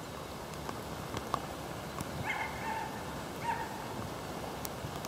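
A dog giving short high yips, a little after two seconds in and again about a second later, with a few sharp clicks in between.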